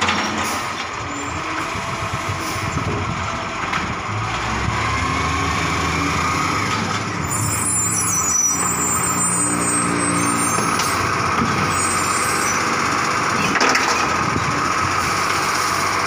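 Iveco Acco side-loader garbage truck's diesel engine running as it drives up and pulls in beside the kerbside bins, with a high squeal from its brakes about halfway through.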